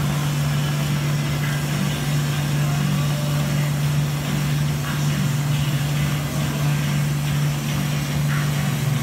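Steady low machine hum that does not change, with a TIG arc burning continuously on stainless steel pipe as filler rod is fed in.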